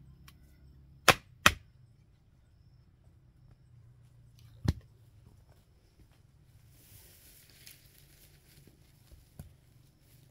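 Sharp knocks: two in quick succession about a second in, a third a few seconds later, and a fainter one near the end, with a brief soft rustle between them.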